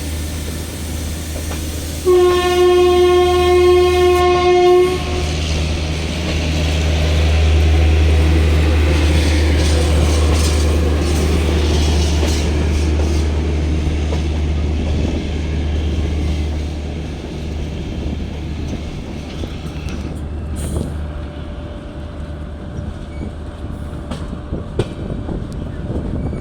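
An Indian Railways express train sounds its horn in one steady blast of about three seconds. The train then passes with a rushing rumble that swells and fades, followed by clicking of wheels over the rail joints.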